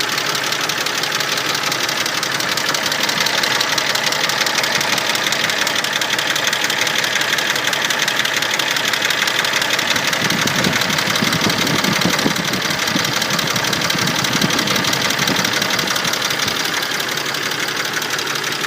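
Mercedes-Benz M104 straight-six engine running hot with a fast, steady clatter of hydraulic valve lifters tapping. The tapping comes only when the engine is hot and points to poor or worn-out oil, which an oil change cured. About halfway through, a deeper sound joins in for a couple of seconds.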